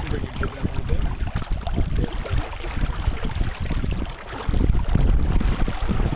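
Wind buffeting the microphone aboard a boat: an irregular, gusty low rumble that grows louder about four and a half seconds in.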